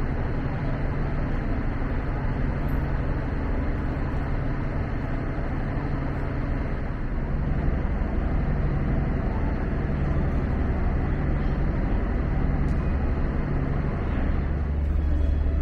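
Steady low engine drone of a lake cruise boat, heard inside its passenger cabin.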